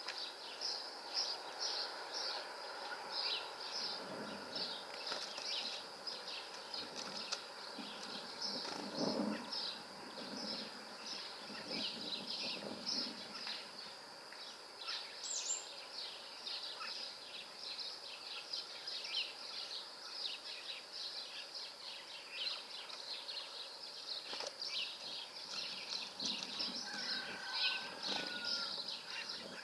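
Small songbirds chirping and twittering, with many short high calls overlapping in a steady chatter and a brief whistled note near the end.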